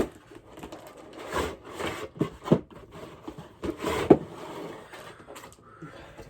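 Cardboard toy box being opened and handled: irregular rustling and scraping with a few light knocks and clicks.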